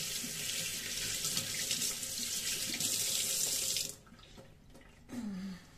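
Water running from a kitchen tap in a steady hiss, shut off suddenly about four seconds in. A short vocal sound follows near the end.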